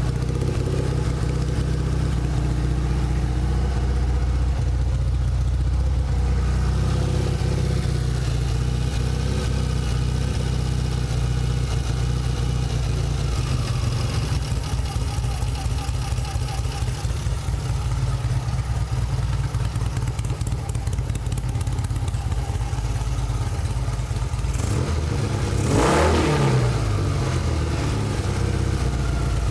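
1972 Norton motorcycle's parallel-twin engine idling steadily while its ignition timing is checked with a strobe light, with a short rev up and back down near the end.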